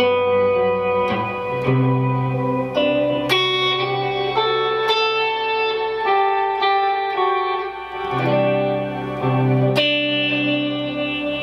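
Vintage Yamaha semi-hollow electric guitar on its Porter WRH wide-range neck humbucker, played clean through a Source Audio Collider delay and reverb pedal: slow picked notes and chords, about one a second, each ringing on into long ambient trails that overlap the next.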